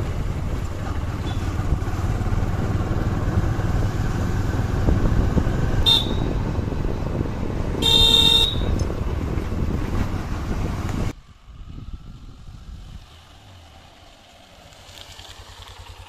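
Motorcycle riding along: steady wind and engine-and-road noise, with a brief horn toot about eight seconds in. The noise cuts off suddenly about eleven seconds in, leaving a much quieter outdoor background.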